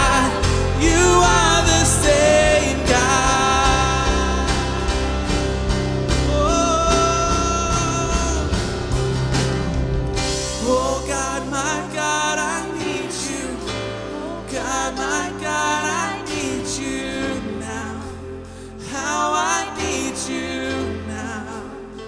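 Live church worship band of drums, bass, piano and guitar with voices singing. About halfway through, the drums and bass drop out, leaving the singing over lighter piano and guitar as the music slowly gets quieter.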